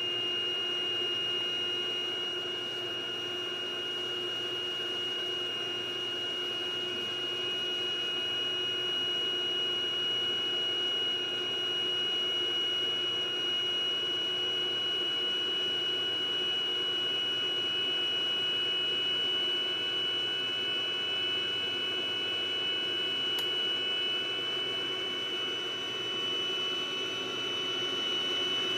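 iMac G5 rev A running, its fans whirring under a steady high-pitched whine and a lower hum. This is the electrical noise of a faulty unit, which stopped once the whole logic board was replaced.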